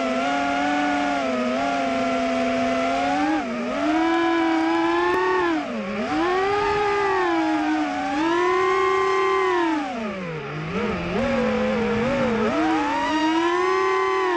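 FPV quadcopter's brushless motors (Emax Eco II 1700 KV) and propellers whining, heard from the onboard camera. The pitch rises and falls continuously with the throttle and drops sharply about six seconds in and again around ten seconds in.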